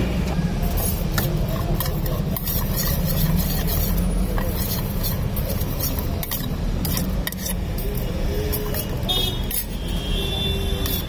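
Steel spoon clinking and scraping against a stainless steel bowl as corn kernels and chopped capsicum are stirred, in quick irregular clicks. A steady low rumble runs underneath.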